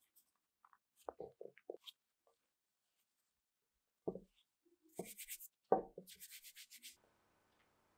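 Faint hand-work sounds of preparing dough or ingredients: scattered soft knocks and rubbing, then two short runs of fast, light scratching strokes about five and six seconds in.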